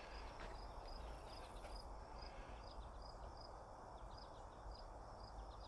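Faint outdoor nature ambience: a high chirp repeating steadily about two or three times a second, with a few short songbird notes and a low rumble underneath.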